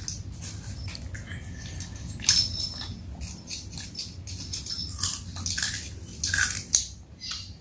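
A child eating close to the microphone: chewing and smacking on a mouthful of rice, with a few sharper, louder bites about two seconds in, around five seconds and near the end.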